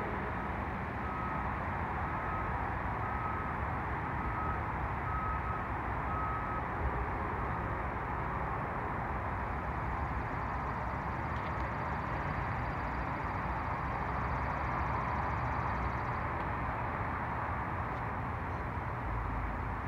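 Steady background noise of a running vehicle, with its reversing alarm beeping about once a second, seven times, then stopping about a third of the way in.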